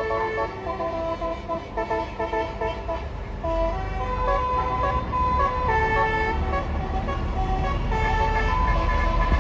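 A bus's multi-tone Basuri 'telolet' musical air horn playing a melody, several notes sounding together and stepping from pitch to pitch. A low engine rumble grows louder about a third of the way in.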